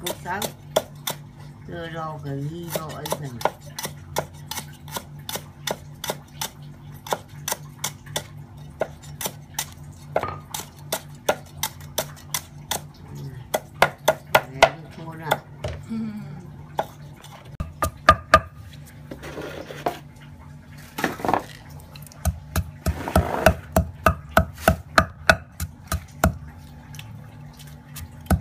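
A cleaver chopping sliced lemongrass on a wooden chopping block, a quick steady run of knocks over a low hum. In the last few seconds it gives way to heavier knocks of a wooden pestle pounding lemongrass in a stone mortar.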